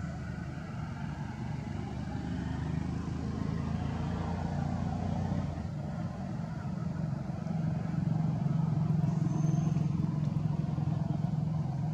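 A motor vehicle engine running with a steady low drone, growing louder about eight seconds in.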